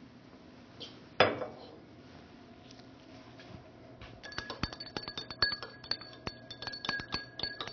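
A single knock on the bench, then a glass stirring rod clinking quickly and repeatedly against the inside of a glass beaker as the solution is stirred, each strike ringing the glass at the same bell-like pitch.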